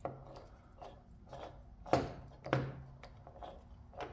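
Harley-Davidson four-speed transmission's shifter mechanism worked by hand on the bench: a series of light metallic clicks and clunks as it is shifted from third toward fourth gear, with two louder clunks about two seconds in.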